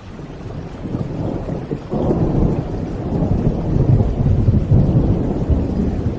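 Thunder rumbling over steady rain, swelling sharply about two seconds in into a long, deep roll.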